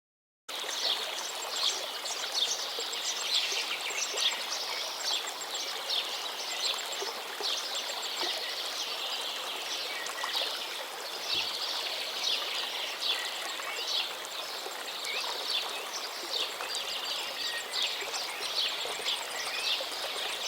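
Water running and splashing steadily into a balcony rainwater drain, full of small trickling and dripping splashes. It starts abruptly about half a second in.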